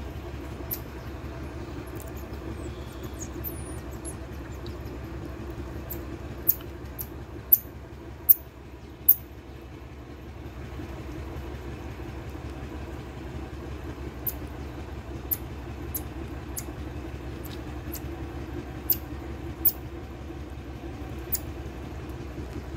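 Common marmosets giving short, very high-pitched chirps, a quick run of loud ones near the middle and scattered ones later, over a steady low mechanical hum.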